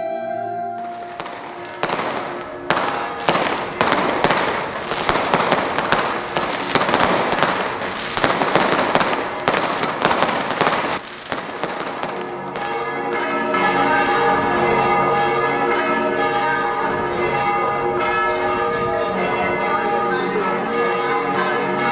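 Fireworks and firecrackers going off in rapid, dense bangs and crackles for about eleven seconds, then church bells ringing a steady peal.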